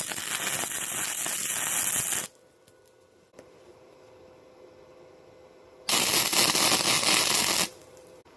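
Two bursts of crackling wire-feed (MIG) welding, each about two seconds long, starting and stopping sharply as the torch trigger is pulled and released.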